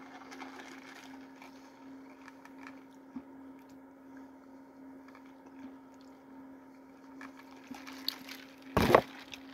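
Soft sipping of a fountain soda through a straw in a plastic-lidded cup, over a faint steady hum, with a brief loud bump near the end.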